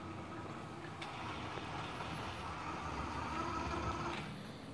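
Neato Botvac robot's drive motors and wheels running steadily as it rolls itself across a hardwood floor, getting quieter near the end.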